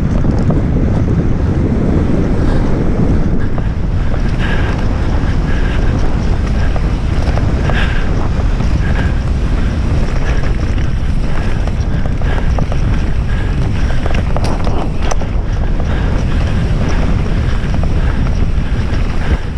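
Wind buffeting the microphone of a camera on a mountain bike riding fast down a dirt forest trail, with tyres running over the dirt. Scattered clicks and knocks come from the bike rattling over bumps.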